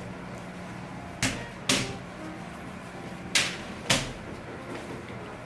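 Raw biscuit-dough rounds being set down by hand onto a parchment-lined baking sheet: four short, sharp pats that come in two pairs, with a light rustle of the paper.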